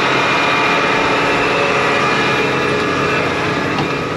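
John Deere 8R 370 tractor's diesel engine running at a steady speed: a loud, even drone with a high whine in it.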